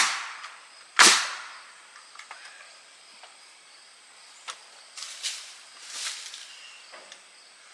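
Pneumatic nail gun firing twice, about a second apart, each shot a sharp crack. A few fainter knocks and clicks follow about four to six seconds in.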